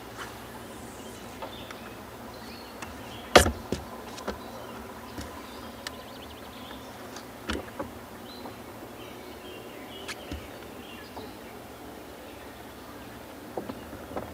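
Scattered clicks and knocks from handling a rod and spinning reel on a boat deck, the loudest a sharp knock about three and a half seconds in, over a quiet outdoor background with faint bird chirps.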